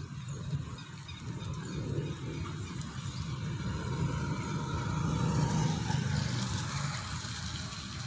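Steady rain falling, with a low rumble that swells louder about halfway through and fades again.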